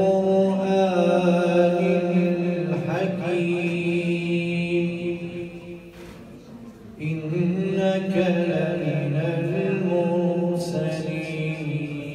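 A man's voice in melodic Quran recitation, long notes held and bent slowly through a microphone, in two phrases with a short break about six seconds in.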